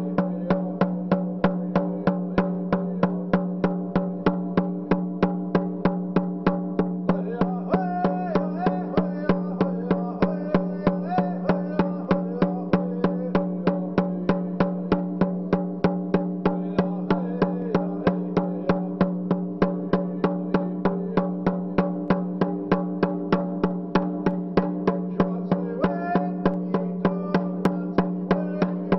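Rawhide hand drum struck with a beater in a steady, even beat of about two strikes a second, with singing over it at times.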